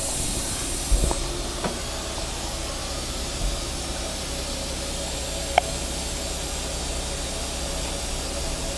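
CNC vertical mill running a rigid tapping cycle on brass parts, a 10-24 high-spiral tap turning at 350 RPM, under a steady hiss of flood coolant spraying from the nozzles. A few sharp clicks come through, the loudest a little past halfway.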